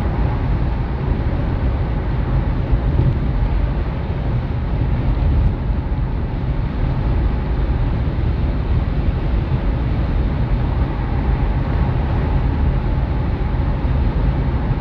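Steady road and engine noise of a moving car, a constant low rumble with no sudden changes.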